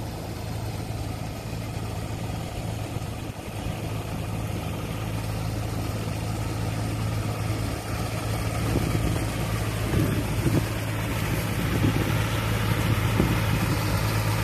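Walking tractor's engine running steadily as it works a flooded rice paddy, getting louder as the machine comes closer, with rougher churning in the second half as its cage wheels push through the mud.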